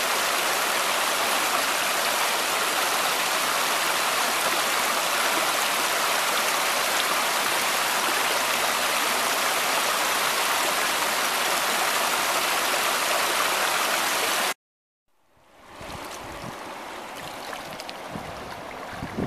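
Small rocky brook tumbling over stones: a loud, steady rush of running water. About three-quarters of the way through it cuts off suddenly, and after a brief silence a quieter sound of river water lapping at the shore comes in, with wind rumbling on the microphone.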